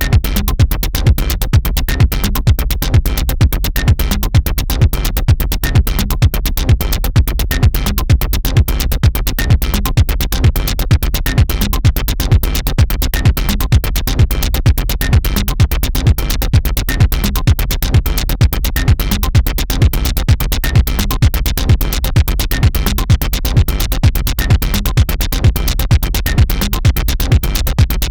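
Electronic dance music with a steady, fast drum-machine beat.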